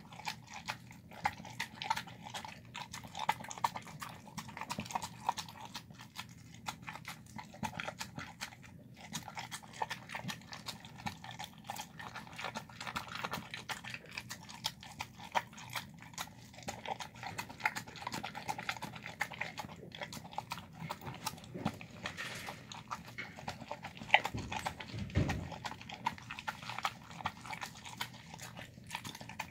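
Dog eating wet rice, beans and chicken from a plastic tub: continuous wet chewing, smacking and licking in quick irregular clicks. One louder knock comes near the end.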